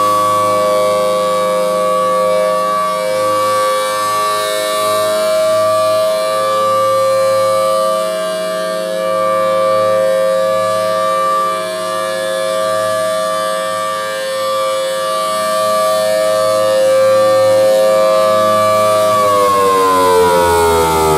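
Federal Signal Thunderbolt 1003 rotating outdoor warning siren sounding a steady chord of several tones, the level swelling and dipping as the horn turns. Near the end the pitch starts to fall as the siren winds down.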